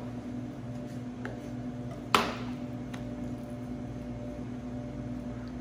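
A steady low hum with one sharp clack about two seconds in, as a chef's knife is set down on a plastic cutting board, followed by faint clicks of handling.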